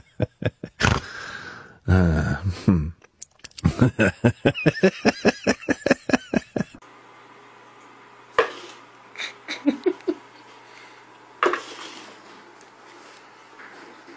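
A person laughing hard in quick repeated bursts, about five a second, which stop abruptly about seven seconds in. After that, two soft knocks and some light scuffling as cats bat a plastic cup across a wooden floor.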